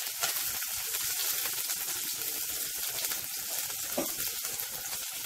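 Chopped garlic and green chillies frying in hot oil in a non-stick pan: a steady sizzle with small crackles.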